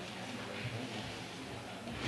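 Indistinct chatter of several people talking in a room, with no clear words.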